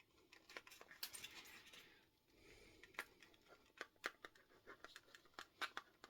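Faint scratching of a small pocket-tool pen writing on paper, followed by a run of light scattered ticks and taps.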